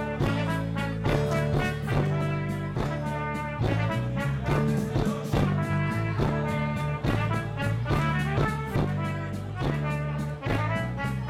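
Live band playing an instrumental passage of a mazurka, with bass guitar and a steady, evenly spaced beat.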